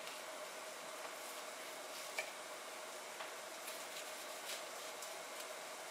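A kitchen knife slicing a red onion on a cutting board, the blade tapping the board a handful of times, over a steady hiss from celery frying in a pan.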